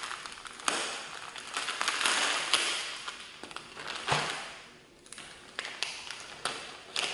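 Plastic packaging bag crinkling and rustling as it is handled and opened, with scattered small clicks; it goes quiet for a moment about five seconds in.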